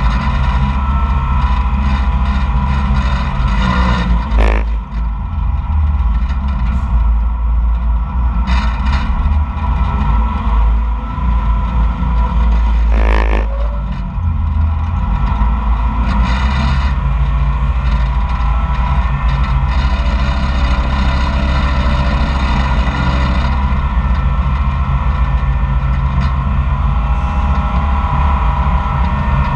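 Koehring 440 dragline's engine running steadily under load, heard from inside the operator's cab as the drag and hoist are worked. A sharp clank about four and a half seconds in and a short rattling clatter about thirteen seconds in come from the machinery.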